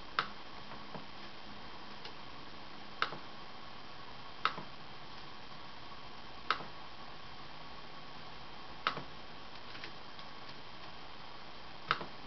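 Sharp single clicks of laptop keys and buttons, about six of them a couple of seconds apart with a few fainter ticks between, over a steady faint hiss and a thin high whine.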